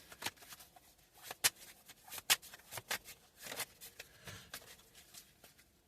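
Tarot cards being handled and laid out: irregular soft flicks and taps of card stock, with a couple of sharper snaps in the first half.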